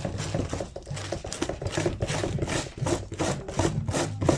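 Metal wire brush scrubbed by hand over old foam and glue residue on a car door panel, quick repeated rasping strokes several times a second, lifting the old foam off.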